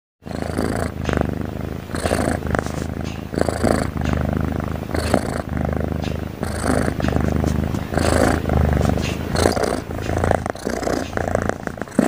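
Domestic tabby cat purring loudly close to the microphone: a continuous low rumble that swells and eases with each breath, about once every second and a half.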